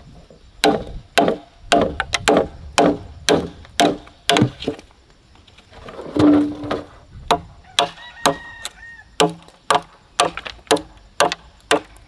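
Repeated sharp chopping blows on wood, about two a second, each with a short ringing knock. The blows break off briefly around the middle and then pick up again at the same pace.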